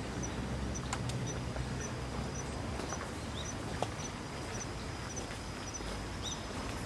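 Outdoor ambience: steady background noise with a faint high chirp repeating evenly about twice a second, likely from an insect or bird, and a few small clicks.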